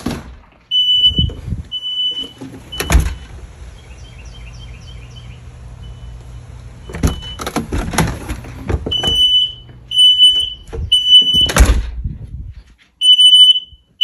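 Kidde smoke alarm sounding in alarm, a shrill beep repeated in groups of three with a pause between, set off by aerosol test smoke in its sensing chamber. The beeps go fainter for a few seconds in the middle, and a few loud knocks or thumps come through.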